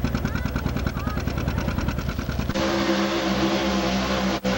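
Antique John Deere tractor engine running with a rapid, even pulsing beat, cut off about halfway through by a pickup truck's engine held at high, steady revs as it pulls a weight sled. A very short dropout near the end.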